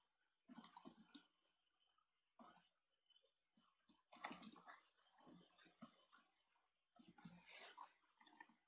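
Faint typing on a computer keyboard: quick irregular runs of key clicks as a short phrase is typed, with a couple of brief pauses between runs.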